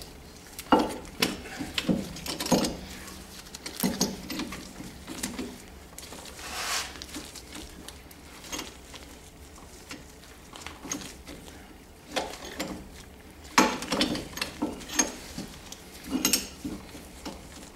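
Scattered metallic clicks, clinks and knocks of hand tools at a disc brake caliper: a C-clamp being wound and handled after pushing the caliper piston back. The clicks bunch together near the start and again in the last few seconds.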